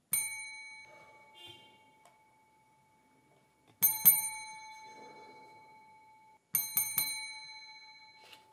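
Chrome desk service bell struck by hand: one ding, then two quick dings about four seconds in, then three quick dings near the end, each ringing out and fading.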